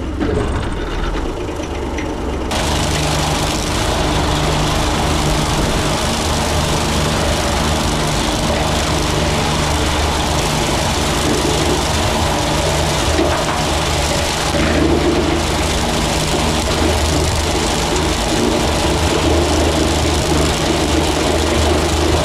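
New Holland tractor engine running steadily while it pulls a trailed mower cutting ripe wheat, with the rushing noise of the cutter and crop over it. The rushing noise jumps up sharply about two and a half seconds in and then holds steady.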